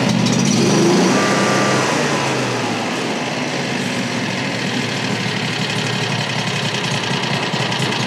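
Frontier OS35 sawmill's 670cc engine running cold on full choke. It picks up in the first second or two, then settles to a steady run.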